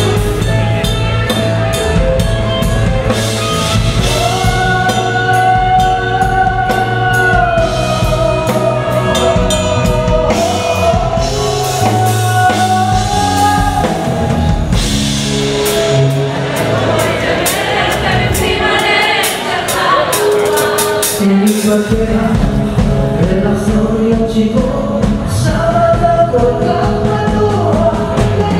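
A live band playing a song: a lead vocal singing held, gliding lines over drum kit and other instruments.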